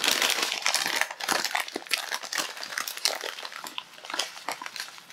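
Plastic bag of roasted sesame seeds crinkling as it is handled, densest in the first couple of seconds, then thinning to scattered crackles.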